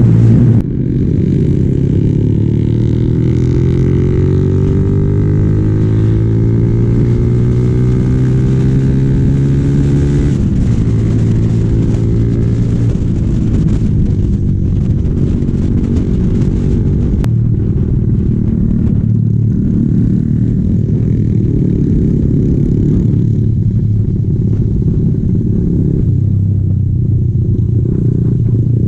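Yamaha Sniper 135's single-cylinder engine running under way. Its pitch rises slowly and steadily for about ten seconds, then goes up and down with the throttle for the rest.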